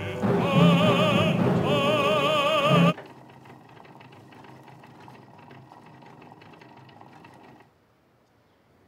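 Operatic singing over an orchestra with a wide, wavering vibrato, playing on a horn gramophone. It stops abruptly about three seconds in, leaving only a faint hiss, and near the end falls to near silence.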